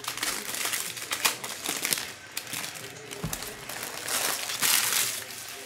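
Foil wrappers of 2023-24 Donruss basketball card packs crinkling as the packs are opened and handled, in irregular crackly bursts that are loudest about four to five seconds in.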